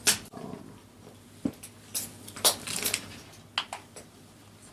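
Scattered light clicks and taps, about ten at irregular spacing, with a faint steady hum underneath.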